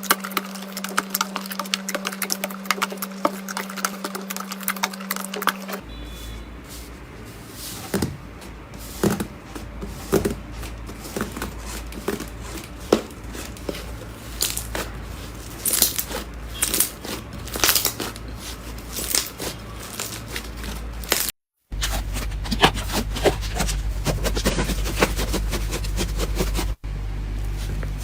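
Slime being pressed, squished and poked by hand, with many small crackling and popping clicks. The sound changes character at a few cuts between clips, and there is a brief silence near the end.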